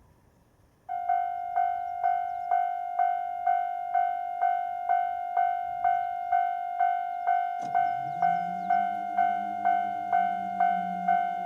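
Japanese railway level-crossing warning bell starting about a second in and ringing steadily, about two strokes a second, as the crossing activates for an approaching train. About two-thirds of the way through a low hum joins it, rising slightly in pitch.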